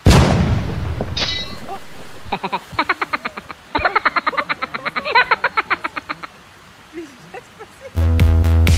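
A loud splash of a lion plunging into a pond, fading over about a second. It is followed by a run of rapid even pulses, several a second for about four seconds, and electronic dance music with a heavy bass begins near the end.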